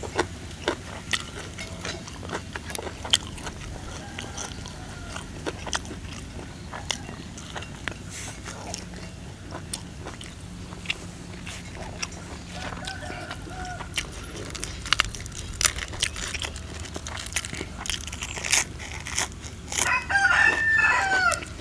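Close-miked chewing, with frequent sharp mouth clicks and smacks, as a man eats sticky rice and grilled fish. Near the end a rooster crows loudly for about a second and a half.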